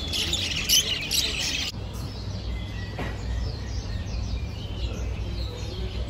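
Many caged lovebirds chattering in dense, loud high-pitched chirps, cut off abruptly under two seconds in; after that only fainter scattered bird chirps over a low steady hum.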